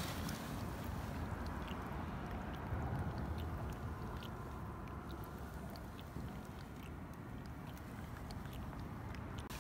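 Shallow river water sloshing and trickling close to the microphone, a steady low rumbling noise with faint scattered clicks.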